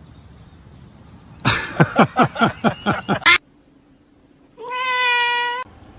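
Domestic cat meowing: a quick run of about eight short calls, each falling in pitch, then after a pause one long, steady meow.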